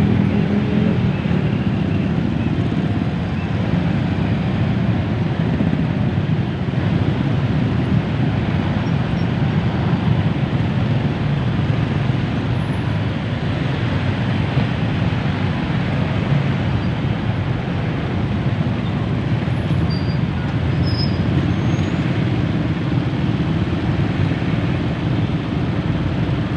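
Heavy, slow-moving road traffic: a steady low rumble of vehicle engines and tyres in stop-and-go congestion.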